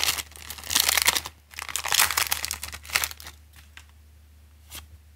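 Foil booster-pack wrapper of a Pokémon trading card pack crinkling in bursts as it is pulled open, going quiet after about three seconds.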